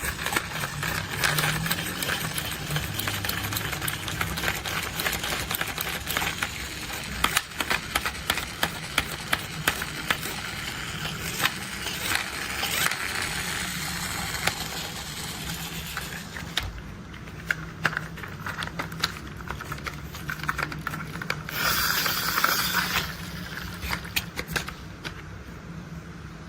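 Toy construction vehicles being handled, with hard plastic parts clicking and clattering many times over. About 22 s in there is a short hiss lasting a second or so.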